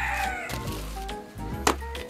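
Background music with a steady beat. A rooster's crow falls away at the start, and about three-quarters of the way through there is a single sharp knock: a chunk of lump charcoal set down in a metal grill tray.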